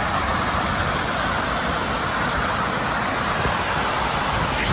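Steady rushing of fast water, an even, unbroken roar.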